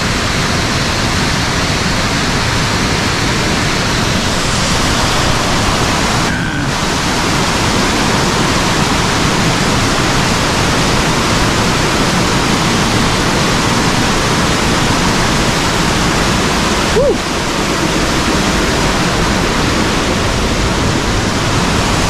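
Water cascading over rocks in a forest stream near a waterfall: a loud, steady rushing.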